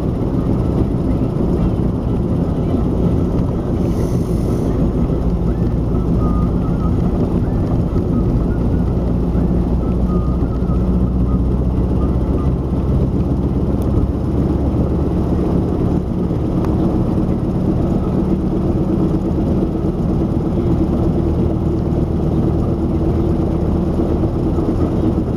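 GAZ M-20 Pobeda heard from inside while driving: steady drivetrain and road noise with a humming tone that grows stronger in the second half. The hum comes from the rear axle, which the owner calls locomotive-like, with cyclic noise that follows wheel speed even when coasting.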